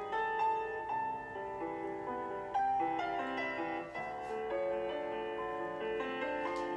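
Piano accompaniment for a ballet barre plié exercise, played as recorded class music: a slow, steady classical-style piece with one sustained note after another.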